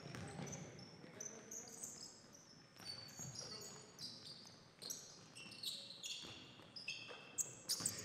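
Basketball game on an indoor court: sneakers squeaking in many short, high chirps on the gym floor as players cut and stop, with a basketball bouncing. The squeaks are loudest near the end.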